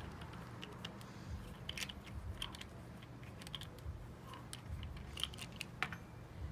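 Scattered small clicks and taps of plastic ink dropper bottles being handled and a cap twisted off, over a steady low hum.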